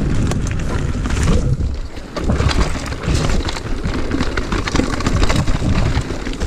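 Mountain bike riding fast down a rough dirt singletrack: steady tyre noise with a constant rattle and clatter of the bike over stones and roots, and wind rumbling on the chest-mounted microphone.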